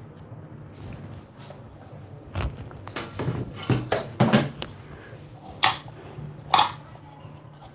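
Dough being handled and kneaded in a bowl, with sharp clinks and knocks of metal bangles and utensils: a cluster of them near the middle and two bright clinks later on. A steady low hum runs underneath.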